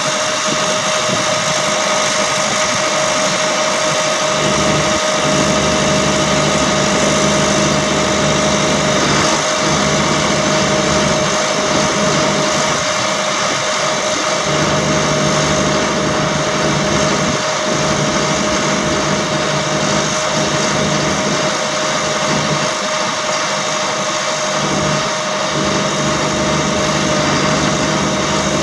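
Service truck's hydraulic crane raising its boom: the hydraulic pump, driven by the truck's running Caterpillar 3126 diesel, makes a steady whine over a hiss, with a low engine hum that comes and goes.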